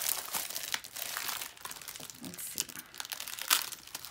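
Crinkly packaging being handled and rustled, with irregular sharp crackles throughout.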